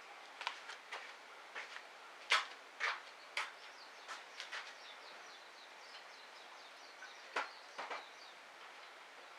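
Wood fire in a small wood-burning stove crackling, with irregular sharp snaps and pops. There is a cluster of louder snaps between about two and three and a half seconds in, and another pair later on.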